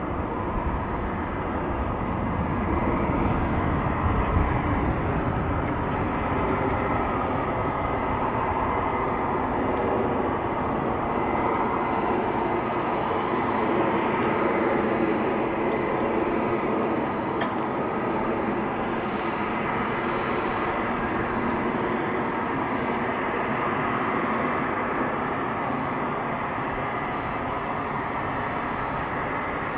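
Jet engines of a Boeing 777-200ER airliner at climb power, heard from the ground as a steady, deep rumble of engine noise while the jet climbs away after takeoff.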